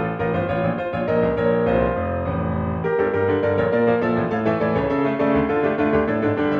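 Background music played on piano: a steady, continuous run of notes and chords.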